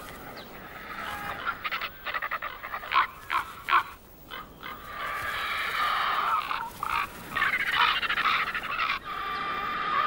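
Ravens and griffon vultures calling harshly as they squabble over a carcass: a quick run of short croaking calls, then longer rasping calls from about five seconds in.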